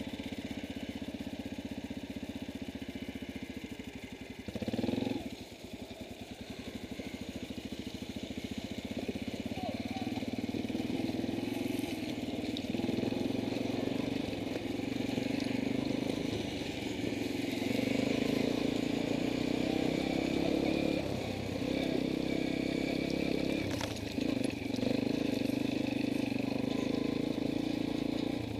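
Dirt bike engine running at low, steady throttle. It picks up about ten seconds in, and the throttle is briefly let off twice near the end.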